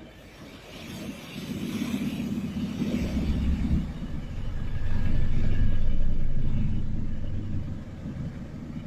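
A deep, steady rumble that swells over the first few seconds, is loudest in the middle, then eases off.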